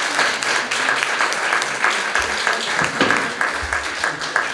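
Audience applauding, a dense round of clapping that thins out toward the end.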